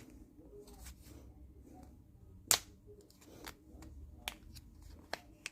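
Hands handling the small package of handcuff shims: scattered light clicks and taps, with one sharper click about two and a half seconds in.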